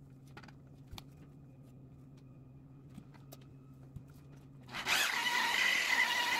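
Rotary polisher with a foam buffing pad, switched off, with a faint low hum and a few light clicks and knocks while the pad is swapped. About five seconds in the polisher starts up and runs with a steady high whine, buffing a sanded plexiglass panel toward a clear finish.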